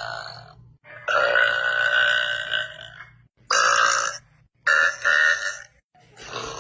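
A woman belching repeatedly. A drawn-out burp of about two seconds is followed by two short ones in quick succession, and another begins near the end.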